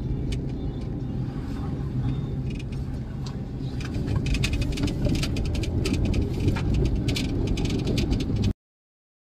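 Car cabin noise while driving on a rough road: a steady low rumble of engine and tyres with many small rattles and clicks, busier and slightly louder from about four seconds in. The sound cuts out abruptly for a moment near the end.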